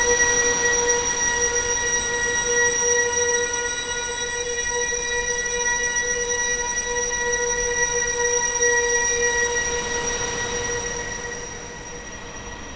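Horror sound effect: a single steady, piercing drone with a long series of overtones, holding its pitch and fading away near the end.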